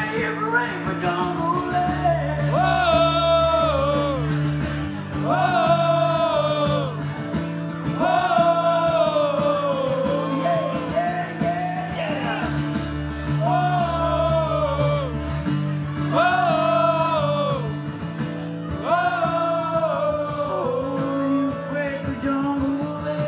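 Live performance of a country-rock song: a man sings long phrases that fall away at the end, one about every three seconds, over steady accompaniment with guitar.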